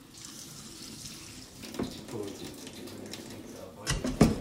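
Water running, with two sharp knocks near the end.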